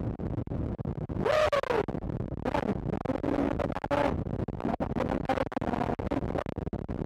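Wind-buffeted external microphone on a riding motorcycle crackling and scratching with rapid clicks as the bike speeds up past 80 km/h, the garbled sound that sets in with speed. A louder wavering tone breaks through about a second in, with weaker ones later.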